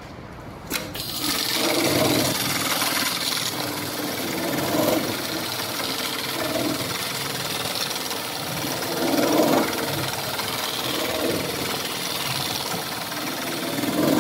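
HighTex MLK500-2516ECO automatic pattern sewing machine stitching heavy Kevlar webbing. It starts with a sharp click about a second in, then runs at speed steadily, the sound swelling every couple of seconds as it works along the seam.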